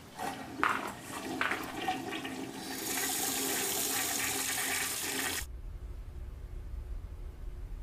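A few sharp clicks and knocks, then rushing water for about three seconds that cuts off suddenly, leaving a low hum.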